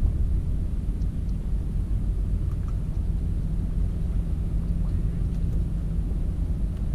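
A steady low engine hum from a motor running nearby, even throughout, with a few faint ticks.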